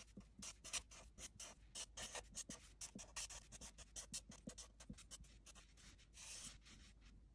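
Marker nib rubbing quietly on paper as letters are written, in quick short strokes, with one longer stroke about six seconds in.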